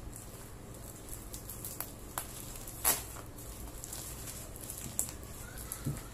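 Scissors snipping and plastic packaging wrap crinkling as a parcel is cut open: scattered sharp clicks and rustles, the loudest about three seconds in.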